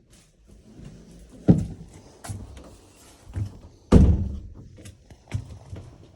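Footsteps and thuds on the hollow floor of a travel-trailer camper, with two loud thunks about a second and a half in and about four seconds in, like a door or panel being shut.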